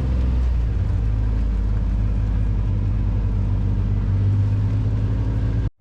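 Off-road vehicle's engine running steadily in a low drone, cutting off suddenly near the end.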